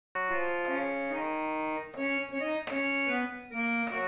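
Mini electronic keyboard playing a slow melody of held notes, stepping from one note to the next.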